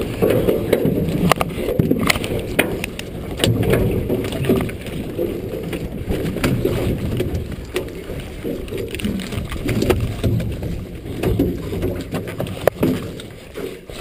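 Muffled knocks, clatter and rustling of a gillnet and salmon being handled as the net is picked aboard a fishing boat, dulled by the camera's waterproof case.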